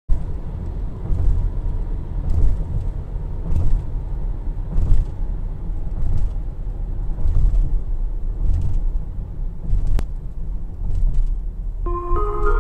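Steady low rumble of a car driving at highway speed: tyre and engine noise, with faint knocks now and then. Soft music with mallet-like tones comes in near the end.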